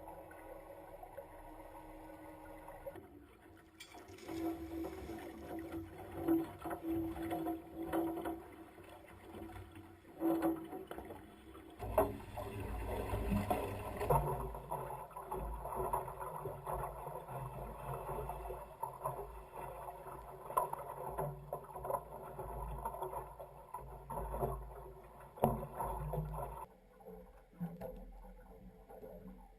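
Boat on the water heard through a mounted GoPro's microphone: noise from the hull, water and wind. The sound changes abruptly at cuts about 3, 12 and 27 seconds in, and is heaviest and most rumbling in the middle stretch, with scattered knocks.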